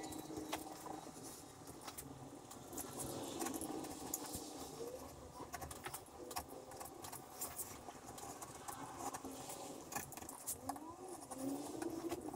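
Knife point scratching along the edge of a template as it scores a marking line into a wooden board: a scatter of small, irregular scratches and clicks.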